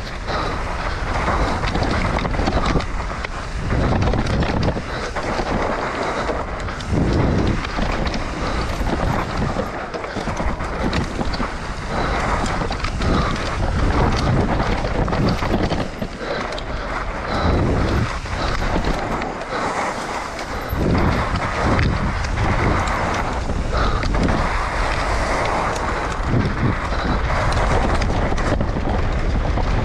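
Wind buffeting an action camera's microphone on a fast mountain-bike descent, over the rush of knobby tyres on a dirt singletrack and the rattle of the bike over bumps. The sound surges and dips with the speed.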